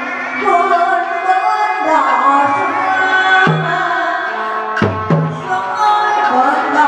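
Vietnamese hát bội theatre music: a melody line over drum strokes, with two heavier low drum strokes about three and a half and five seconds in.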